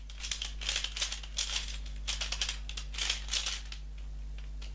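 Plastic Pyraminx puzzle being scrambled by hand: quick irregular clicks and rattles of its pieces turning, stopping near the end.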